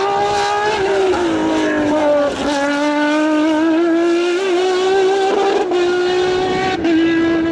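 Sports prototype race car's engine running at high revs: the note drops about a second in as the car slows for a chicane, then climbs steadily under acceleration, with short breaks in the note near the end.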